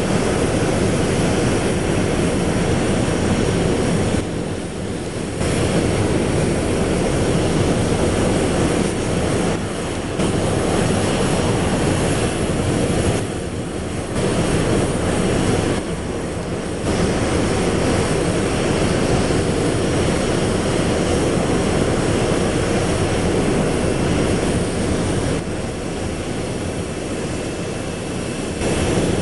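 Boeing 737 jet engines running steadily on the ground: a dense rumble with a faint high whine. The level dips briefly several times.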